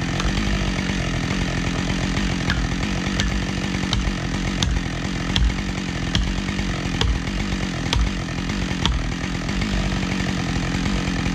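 Husqvarna 572 XP two-stroke chainsaw running steadily at high revs while cutting wood. Sharp clicks come roughly once a second through the middle of the cut.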